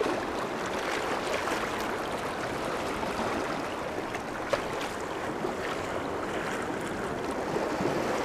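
Sea water washing and splashing over shoreline rocks, a steady hiss of moving water, with a single small click about four and a half seconds in.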